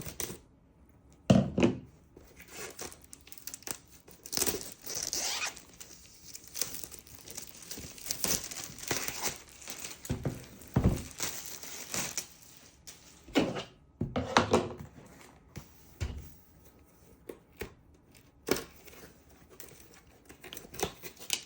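Packaging of a diamond painting kit being torn open and crinkled by hand, in irregular rustling bursts with a few thumps as the kit is handled.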